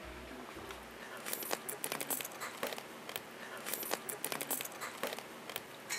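Close-up eating sounds of seasoned raw crab (yangnyeom gejang) being bitten and chewed: an irregular run of small clicks and crackles starting about a second in.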